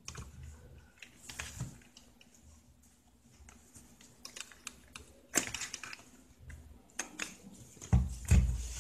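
Handling noise from a plastic digital multimeter and its test probes and leads: scattered light clicks and taps, with a sharper click about five seconds in. Two dull thumps come near the end.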